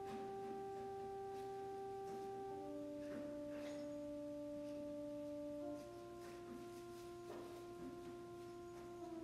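Soft instrumental music of held, pure-toned chords, each sustained without a beat and changing to a new chord about every three seconds.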